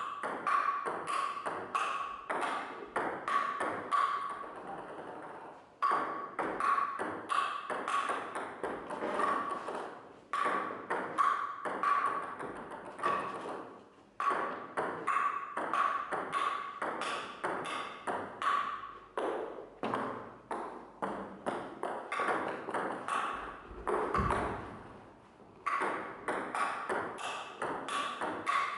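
Table tennis balls clicking off bats and the table in quick strings of strokes, two or three a second, each with a short bright ping. Brief gaps break the strings every four or five seconds as one run of balls ends and the next begins.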